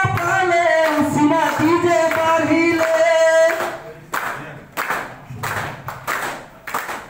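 A man singing a slow melody into a handheld microphone, ending on a long held note about three and a half seconds in. Then a group claps in a steady beat, about one and a half claps a second.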